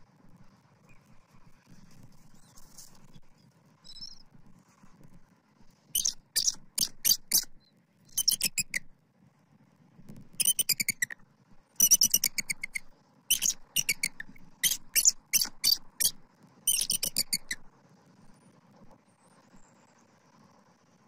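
Adult bald eagle calling in bursts of rapid, high, sharp chittering notes, from about six seconds in until about seventeen seconds in, over a faint low rumble.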